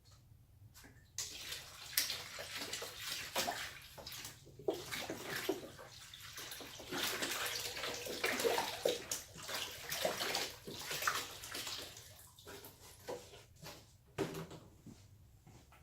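Water poured from a gallon jug into the laser's cooling-water tank, splashing as it fills. The pour starts about a second in and thins out near the end.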